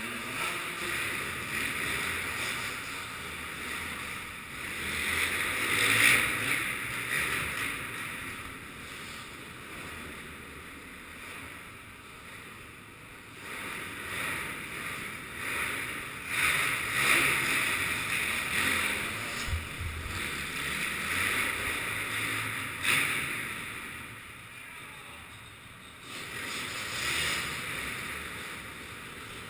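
Enduro dirt bike engine heard from on board as a muffled rushing noise, swelling several times as the throttle opens and falling back in between.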